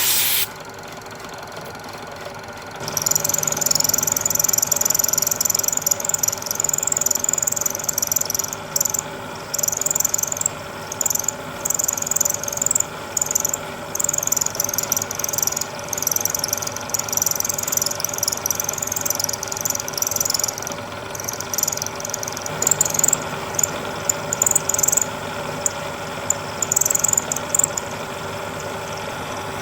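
Milling machine spindle running while an end mill cuts steel in an arc as the rotary table is turned by hand. A steady motor hum runs under an irregular high-pitched cutting noise that starts about three seconds in and comes and goes with the cut.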